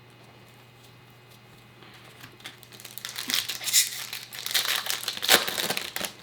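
Foil wrapper of a Topps Chrome trading card pack crinkling and crackling as it is opened. The sound starts about two seconds in and grows loud, with a couple of sharp crackles near the end.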